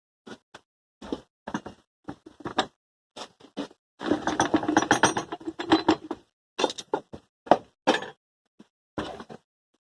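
Metal parts of a Peerless transaxle being handled and taken apart: irregular clinks and knocks, with a longer stretch of rattling metal about four seconds in.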